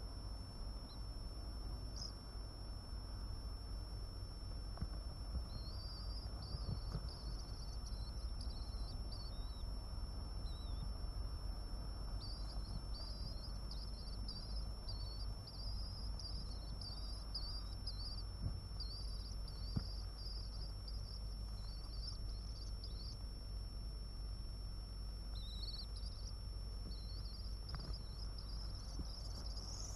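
Swift chicks giving thin, high twittering calls in spells of several seconds, over a steady high-pitched electrical whine and a low hum.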